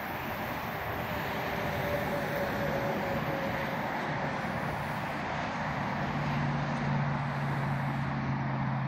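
Steady rushing rumble of distant vehicles, with a low hum that grows louder about six seconds in.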